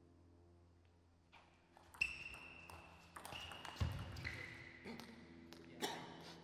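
Table tennis rally: the celluloid ball clicks sharply off the paddles and table in a quick exchange, about 2 to 6 seconds in, with high squeaks of shoes on the court floor and a heavy thump near the middle.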